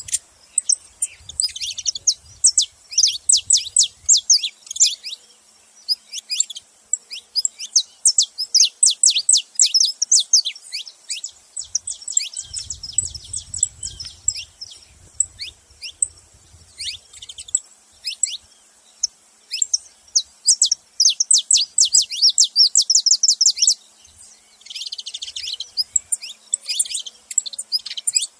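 Saffron finch chirping and singing: fast runs of sharp, high, downward-sliding notes, coming in bursts with short pauses between them.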